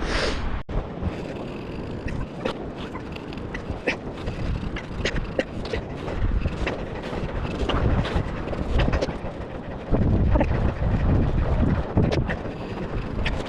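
Wind buffeting the microphone in a rumbling, gusting roar that grows stronger about ten seconds in, with scattered short clicks and crunches throughout.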